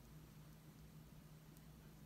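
Near silence: room tone with a faint steady low hum, and a single faint click of small plastic Lego bricks being pressed together about one and a half seconds in.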